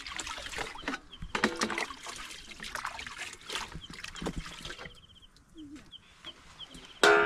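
Water sloshing and a metal pot lid scraping as it is scrubbed and rinsed in a plastic basin, busy for about five seconds, then quieter, with a louder clank near the end. A small bird chirps short high trills now and then.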